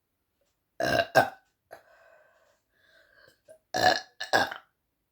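A woman burping after drinking a carbonated apple soda: four loud burps in two quick pairs, one pair about a second in and the other near the end.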